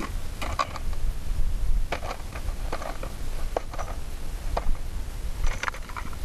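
Green plastic clip-lid geocache container being handled: it scrapes on rock and gravel as it is pulled out and set down, and its plastic lid clips snap open. About six short, sharp clicks and scrapes are spread through, over a steady low rumble.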